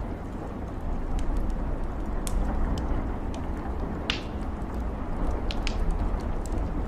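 Steady rain with scattered sharp drips and taps, one louder tap about four seconds in.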